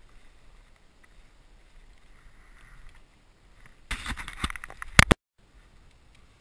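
Handling noise in a kayak: faint, then about four seconds in a loud burst of rattling and knocking lasting about a second, ending in two sharp knocks.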